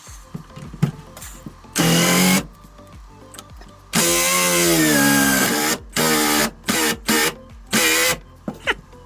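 Handheld power tool running in a series of short bursts on a rusted body bolt. The longest burst is near the middle, and its pitch sags under load. The bolt's far end has broken free, so it only turns and will not back out.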